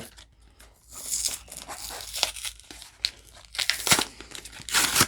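A Pokémon card blister pack being torn open: crinkling plastic and tearing card, with scattered sharp crackles and a louder rip near the end.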